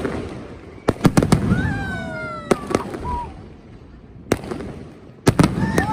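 Wedding fireworks going off: sharp bangs in quick clusters about a second in and again near the end, with a single bang in between. After the first cluster a long whistling tone falls in pitch.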